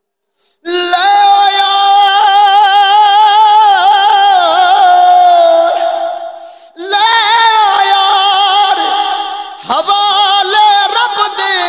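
A man singing a Punjabi Sufi kalam solo in long, high, drawn-out notes with a quivering, ornamented vibrato. The singing comes in three phrases, the first starting just after a short silence at the very start, with brief breaths about six and ten seconds in.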